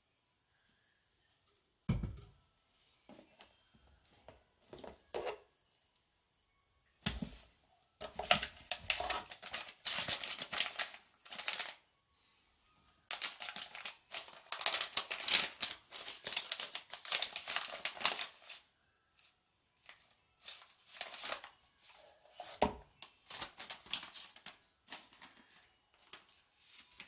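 A plastic packet crinkling and tearing as it is opened and handled, in two long stretches. A few dull knocks of containers being set down come near the start, after about seven seconds and again near the end.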